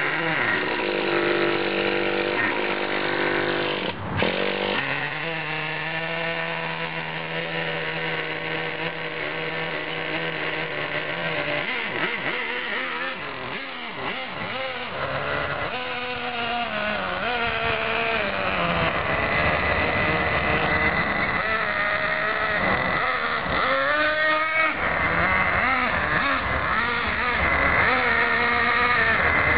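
Traxxas Jato 3.3 nitro RC truck's small two-stroke glow engine running at a steady idle, with one sharp knock about four seconds in. From about the middle on it revs up and down as the truck is driven in short runs, never at full throttle, so its two-speed transmission stays in first gear.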